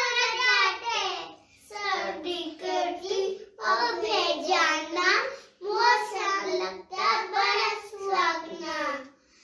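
Two young girls' voices singing a Hindi poem in a sing-song way, phrase by phrase with short breaks between, without accompaniment.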